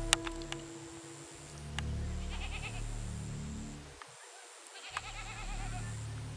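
Goat bleating twice in quavering calls, one about two seconds in and another about five seconds in, over low, steady background tones. A sharp click comes just as it begins.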